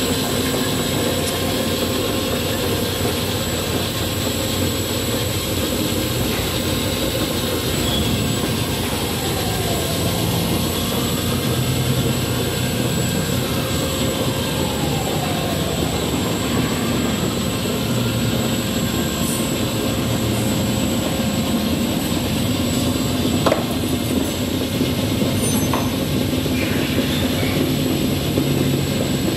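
Manesty Novapress rotary tablet press running: a steady mechanical drone from its motor, belt drive and spinning turret, with a single short knock about two-thirds of the way through.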